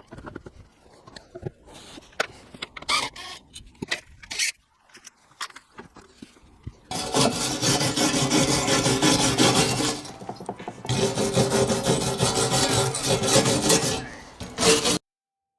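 A few scattered knocks and clicks of handling. Then, from about seven seconds in, a power tool abrading a surface (sanding or wire-brushing) runs steadily with a short break near ten seconds, and cuts off just before the end.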